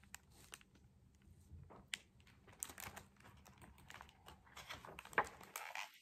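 Faint paper rustles and small taps from a hardcover picture book being handled, with the page being turned near the end.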